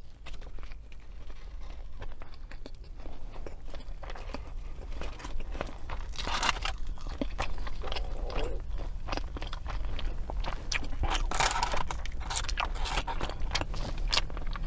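Close-miked crunchy biting and chewing of a fried-chicken and hash-brown sandwich. The crisp crackles are sparse at first and come thicker and louder from about five seconds in.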